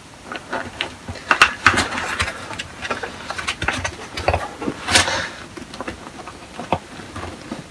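Plastic of a deflated air mattress rustling and crinkling as it is handled, with scattered clicks and knocks as a car tyre valve is worked into the mattress's inflation port. The sharpest knock comes about five seconds in.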